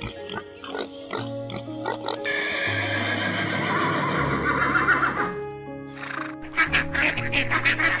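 Light background music over farm animal sounds: short pig grunts for about the first two seconds, then a long horse whinny, then ducks quacking rapidly near the end.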